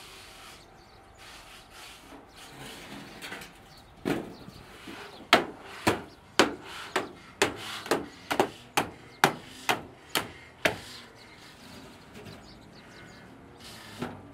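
A steel sheet cut from an oil drum being pounded flat with a long-handled iron tamper: after some quieter scuffing, about a dozen sharp thuds come roughly two a second, starting about four seconds in, with one more near the end.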